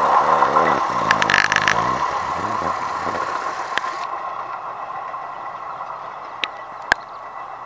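A long passenger train's coach wheels clattering over the rails as the train moves away, fading steadily, with a steady high tone under the clatter. A burst of rattling comes about a second in, and a few sharp clicks follow near the end.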